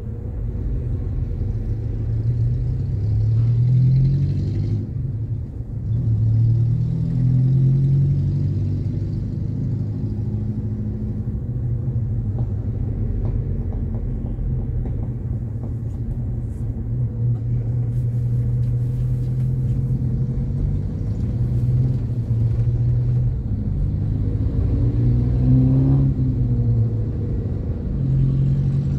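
Car engine and road rumble while driving in traffic, the engine note rising several times as the car picks up speed.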